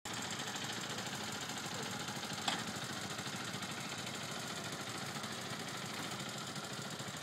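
125 cc motorcycles idling together, a steady even engine sound, with a single sharp click about two and a half seconds in.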